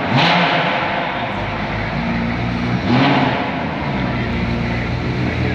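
Lamborghini Aventador's V12 engine running as the car pulls away at low speed, revving up twice: once right at the start and again about three seconds in.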